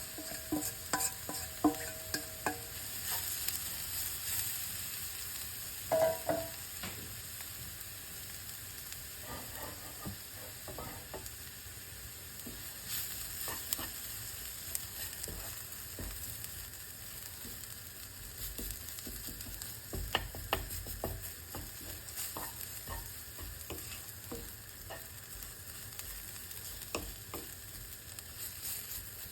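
Dried anchovies and chili peppers sizzling in a frying pan as they are stir-fried, with a steady hiss and frequent clicks and scrapes of the utensil against the pan.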